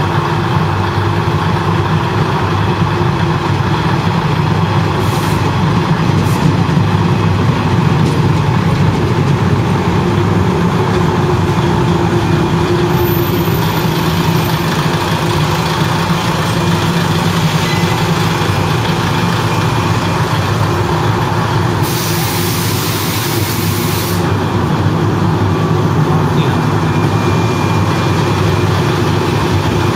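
Kominato Railway KiHa 200 diesel railcar idling at the platform: a steady low engine rumble. About 22 s in, a hiss lasts some two seconds.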